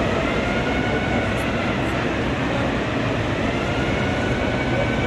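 Cars driving past in a steady rumble, with a faint whine that rises and falls twice.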